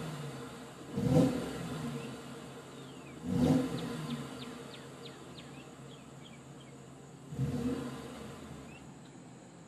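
2011 Ford F-150's 5.0-litre V8 through its stock exhaust, revved in neutral in three short blips, about one, three and a half and seven and a half seconds in, dropping back to idle between them.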